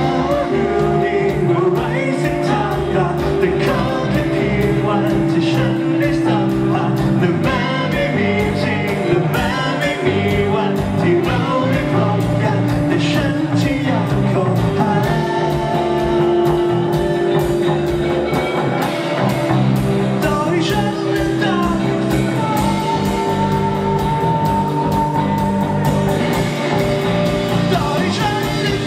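Live rock band playing loud and steady: electric guitars over a regular drumbeat, with a singer's voice.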